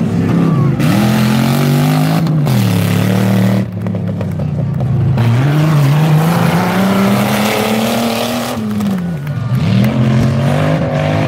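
Off-road 4x4 race vehicle's engine revving hard, its pitch climbing and dropping back several times as the driver accelerates and lifts off through the course.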